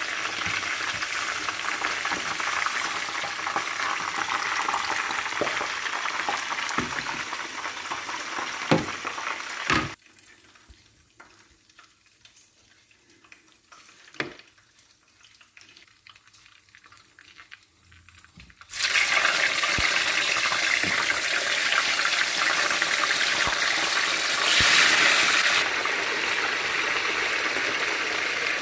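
Fish frying in hot oil, sizzling steadily. It cuts off abruptly about ten seconds in, leaving a quieter stretch with a few knocks. About two-thirds of the way in, a loud steady hiss starts again and swells briefly near the end.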